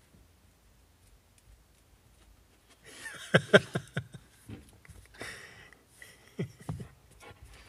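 A Rottweiler's paws and claws on a tiled floor as it walks up, heard as a quick run of clicks and knocks about three seconds in and a couple more later. Before that it is nearly silent.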